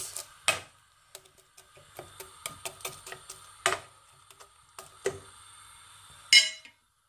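A metal spoon clinking and scraping in a breakfast bowl: a run of light taps with a few louder clinks, the last one ringing briefly before the sound cuts off abruptly near the end.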